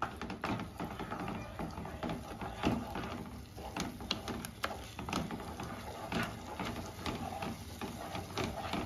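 Wooden spatula scraping and knocking against a non-stick pan as thick onion and tomato masala paste is stirred while it fries, in an irregular run of clicks and scrapes.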